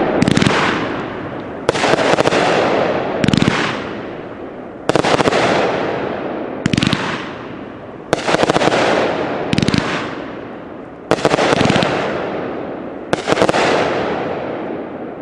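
Consumer firework cake going off shot after shot, about one every one and a half seconds. Each shot is a sharp bang followed by a fading hiss.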